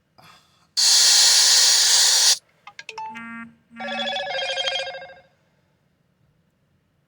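Smartphone notification sound from the DoorDash driver app: a loud burst of hiss, about a second and a half long, that cuts off sharply, then a quick run of electronic chime tones. It is the abnormal notification noise the app keeps making, which changing its notification tone has not cured.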